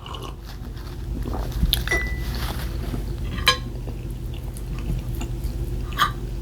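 Cutlery clinking and scraping on a plate while eating a pancake breakfast, with a few sharp clinks, the clearest about halfway through ringing briefly.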